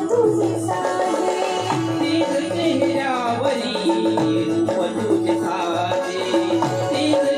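Instrumental passage of live Marathi folk music: a drum keeps a steady beat under a held, sustained melody line.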